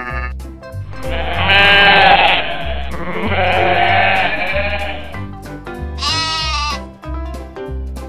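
Goats bleating over background music with a steady beat: two long, wavering bleats in the first half, then a shorter, higher bleat about six seconds in that falls at its end.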